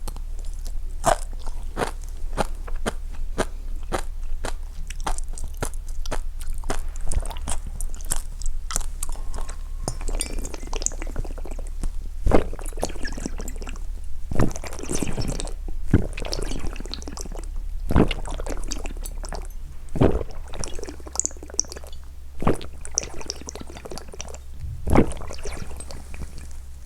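Close-up drinking sounds: a run of quick, wet mouth clicks, then single gulps about every two seconds.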